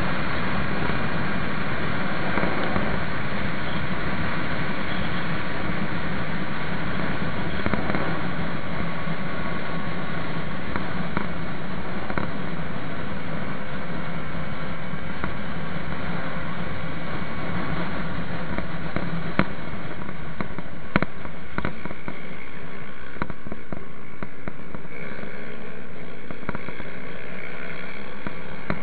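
Yamaha MT-03 motorcycle running steadily on the road, engine and exhaust at a constant pitch. There are two sharp clicks about two-thirds of the way through. Near the end the engine note rises and falls as the revs change.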